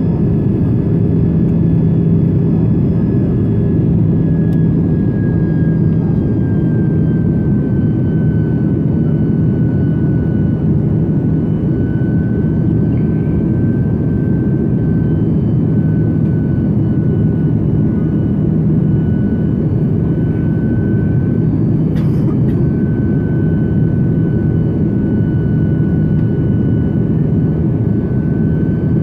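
Airbus A330-200's GE CF6-80E1 jet engines and the rushing air, heard steady and loud from inside the passenger cabin, with a low hum and a thin high whine that settles slightly lower in pitch about eight seconds in. A single short click sounds about three quarters of the way through.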